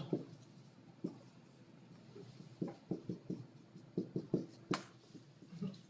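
Dry-erase marker writing on a whiteboard: a string of short strokes and taps as characters are drawn, with one sharper tap a little before the end.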